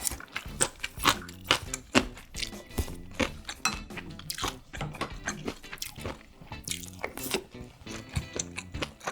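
Close-miked eating sounds: wet chewing with frequent sharp clicks of utensils against dishes.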